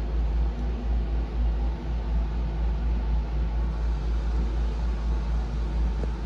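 A steady low rumble with a faint hiss over it, even throughout, with no distinct knocks or tones.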